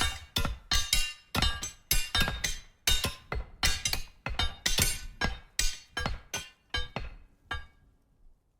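Metal struck repeatedly in quick succession, about two to three hits a second. Each hit rings on with a bright, clinking tone, and the hits stop about seven and a half seconds in, the last one fading out.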